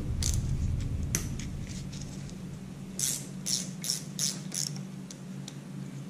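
Small hand ratchet clicking as it is worked on a handlebar clamp bolt: a couple of single clicks, then about three seconds in a run of five quick clicky bursts, one per back-swing, under a steady low hum.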